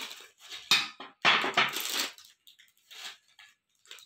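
Plastic chip packets rustling as chips are shaken out, the chips rattling onto ceramic plates, in short bursts, loudest from about one to two seconds in.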